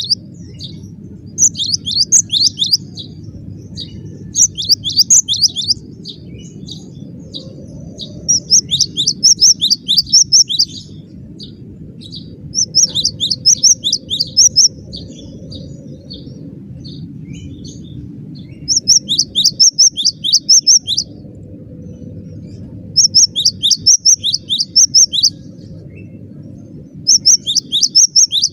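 Cinereous tit (gelatik batu) singing vigorously: bursts of rapidly repeated high notes, each lasting one to two seconds, coming about every three to four seconds over a steady low hum.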